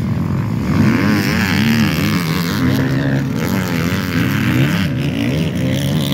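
Motocross dirt bike engines racing on the track, their pitch rising and falling as the riders rev and shift through the turns.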